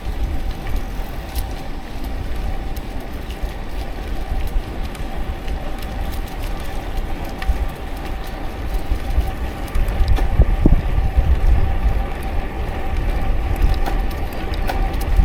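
Wind buffeting an action camera's microphone, a steady low rumble over road noise, swelling a little about ten seconds in.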